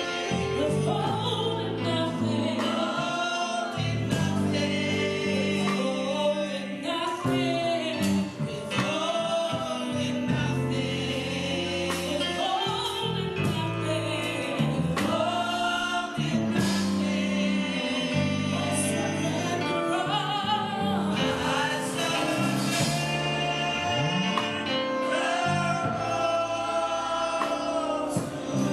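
Gospel worship song sung live: voices carry a melody over held, slowly changing instrumental chords, without a break.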